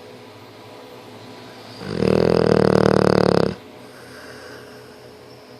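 One loud, rough snore of about a second and a half, starting about two seconds in, with a low fluttering drone.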